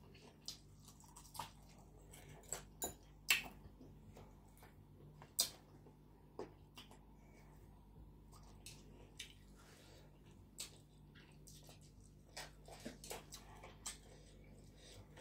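Close-up eating sounds of someone gnawing and sucking on chicken feet: wet chewing with scattered sharp clicks and lip smacks, the loudest about three and five seconds in.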